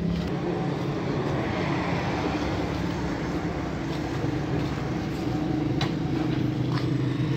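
A steady low mechanical hum, like an engine running, with a few faint clicks.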